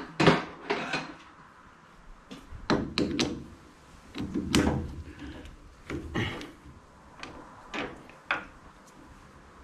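Metal clunks and clicks of a chuck key being fitted into the sockets of a Hafco AL-320G lathe's three-jaw chuck and turned, about a dozen separate knocks with short pauses between them; the lathe itself is stopped.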